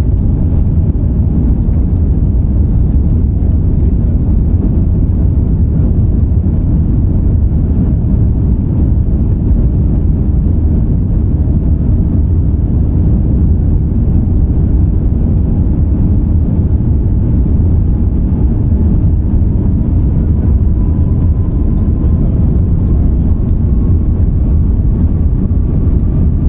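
Airbus A350-900's Rolls-Royce Trent XWB engines at takeoff thrust, heard from inside the cabin as a loud, steady rumble with light ticks and rattles. A faint whine rises slowly in pitch through the second half.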